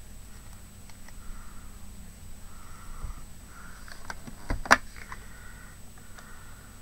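Soft, regular breathing close to the microphone, with a few small clicks from handling craft materials at a desk and one sharp click about four and a half seconds in.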